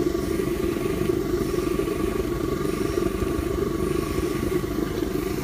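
Three-tube propane burner firing the boiler of a 1/8-scale live-steam Shay locomotive: a steady, unbroken rushing hum with a few faint constant tones above it.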